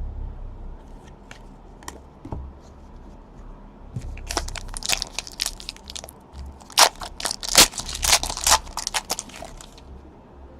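Crinkling and crackling of plastic trading-card packaging as cards are handled. A few light clicks come first, then about six seconds of dense crinkling, loudest in the middle.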